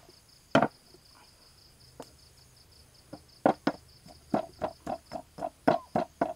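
Bamboo pestle pounding chilies in a stone mortar with short, wet knocks: one strike just after the start, a pause of about three seconds, then steady pounding at about three strikes a second.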